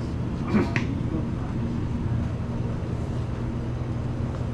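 Steady low electrical hum from the refrigerated drink coolers in a convenience store, with a brief sharper sound about half a second in.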